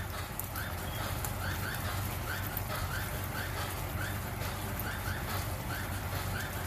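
Thick sauce simmering around pork steaks in a nonstick skillet: bubbles pop with short rising blips a couple of times a second, over light crackling and a steady low hum.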